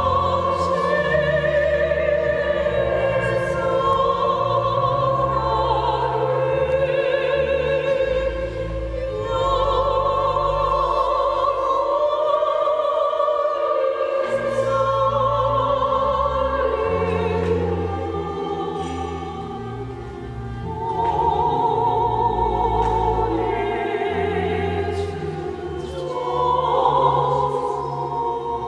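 Women's choir of religious sisters singing a hymn together, in long held notes that change pitch every second or two.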